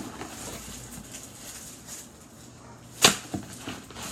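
Quiet handling noise, then a sharp knock about three seconds in and a smaller one just after: an object being picked up or set down while supplies are taken from a box.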